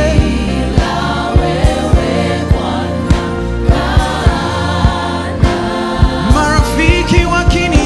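Gospel worship band playing, with singing voices over a steady drum beat.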